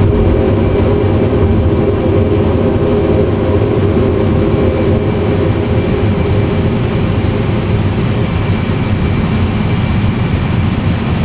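Simulated A320 jet engine and airflow noise at takeoff thrust in the cockpit during initial climb: a loud, steady roar with faint steady tones, easing slightly in its lower band toward the end.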